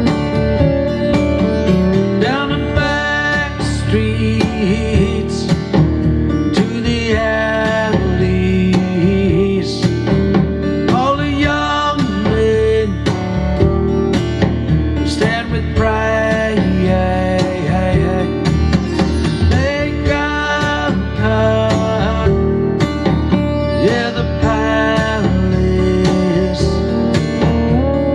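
Music in a country style with guitars over a steady bass line.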